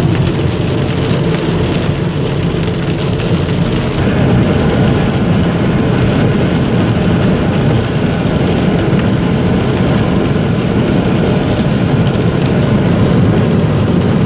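Steady rain and tyre noise on a wet road, heard from inside a moving car, growing a little louder about four seconds in.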